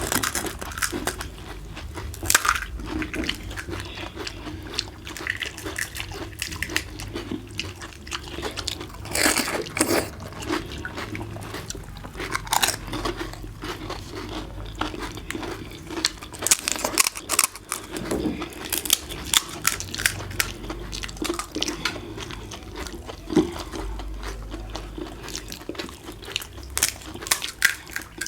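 Pani puri being eaten: the crisp fried shells crunch irregularly as they are bitten and chewed, many times over.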